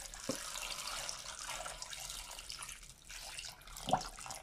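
Water poured from a glass jug into a stainless-steel pot of vegetables, a steady splashing pour that thins about three seconds in and picks up again. There is one brief louder thump near the end.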